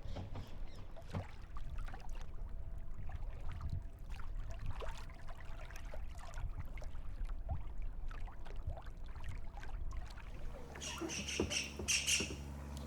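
Water splashing and lapping around a kayak under paddle strokes, with uneven rushing noise and scattered small knocks. Near the end a steady low motor-like hum starts, and a brief cluster of sharp high chirps sounds over it.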